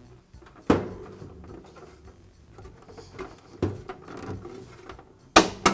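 A plastic light lens being pressed and snapped onto the grill of a NuTone bathroom vent-fan-heater: a few sharp plastic clicks and knocks with light handling rustle between, the loudest a quick pair near the end as the tabs snap into place.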